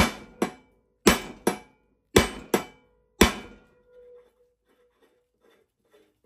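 Brass hammer striking a nut threaded onto a mower-deck spindle shaft, driving the shaft to knock it loose from its stuck pulley. Seven sharp metal blows come in quick pairs over about three and a half seconds, then only faint handling sounds.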